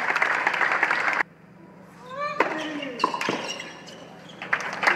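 Tennis crowd applauding, cut off abruptly about a second in. Then a quiet court with a brief rising-and-falling call from a voice and a few sharp tennis ball strikes. Applause swells again near the end.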